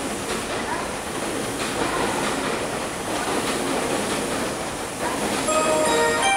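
Meitetsu 2200 series electric train running along the neighbouring tracks: a steady rumble with wheels clicking over rail joints. About five and a half seconds in, a station's electronic chime melody starts up, the signal that precedes the announcement of a train approaching the platform.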